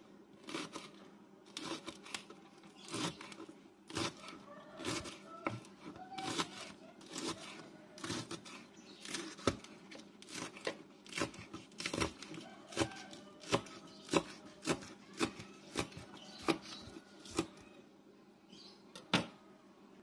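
Kitchen knife slicing a leek into rings on a wooden cutting board: a steady run of blade taps on the board, roughly two cuts a second, stopping shortly before the end with one last knock.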